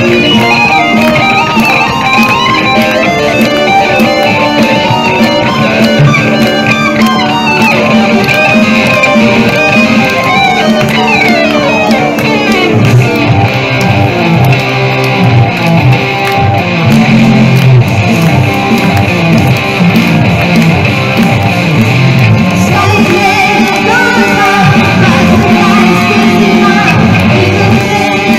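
Electric guitar played live in a rock number, a lead line with a long run falling steeply in pitch about eleven seconds in, then heavier low notes.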